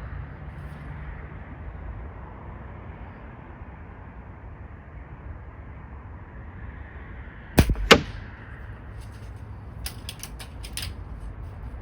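Gamo Swarm Whisper .22 break-barrel air rifle firing one shot about two thirds of the way in, heard as two sharp cracks a third of a second apart. About two seconds later comes a run of light clicks.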